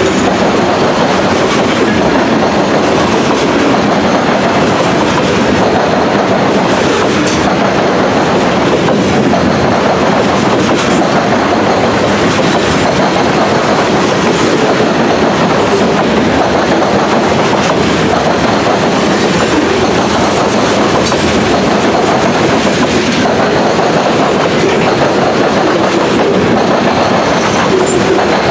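Covered grain hopper cars of a freight train rolling past at close range: a steady, loud noise of steel wheels running on the rails, with occasional sharp clicks.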